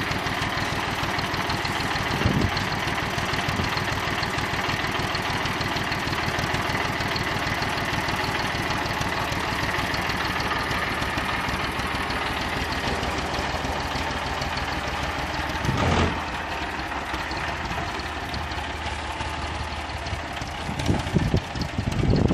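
Steyr 540 tractor's diesel engine idling steadily soon after a cold start in freezing weather, with a single thump about two seconds in and another later on. Near the end the sound gets louder and less even as the tractor pulls away.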